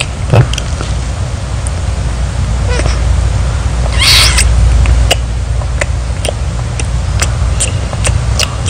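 Couple kissing: scattered wet smacking and clicking lip sounds, with a louder noisy smack about four seconds in, likened to a cat lapping water. A steady low hum runs underneath.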